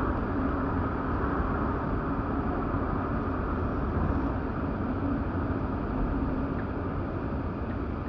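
Steady engine and road noise heard inside a car's cabin as it drives slowly along a street, fading a little toward the end as it slows.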